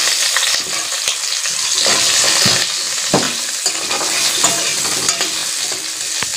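Potato chunks sizzling in hot oil in a metal kadai, fried only until they colour, with a steel spoon stirring them and scraping and knocking against the pan a few times.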